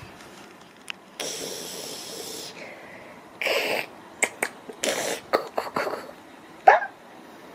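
An adult making a breathy, hissing "keu~" noise at a baby to make her laugh: one long breathy hiss about a second in, a shorter one a little later, then a few clicks and short breaths, and a brief squeak near the end. The baby does not laugh.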